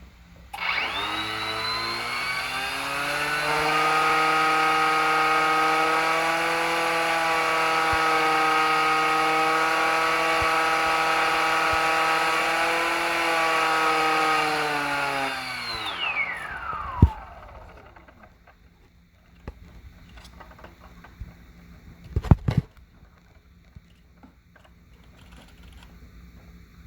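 Motor with a bad bearing spinning up with a rising whine, running steadily for about twelve seconds with a rough rasp over the whine, then winding down in falling pitch. A few sharp knocks follow after it stops.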